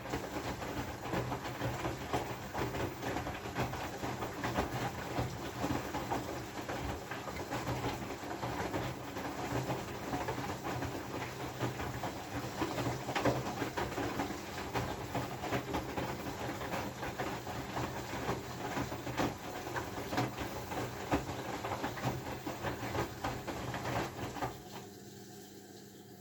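Whirlpool FFB 8469 BV front-loading washing machine running: a steady low motor hum under dense rattling and rushing noise, which cuts off abruptly about 25 seconds in.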